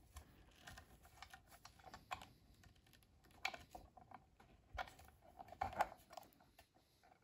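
Small irregular clicks and taps of metal pen parts and a bushing being handled and lined up in a pen press. A few sharper clicks come around three and a half, five and six seconds in.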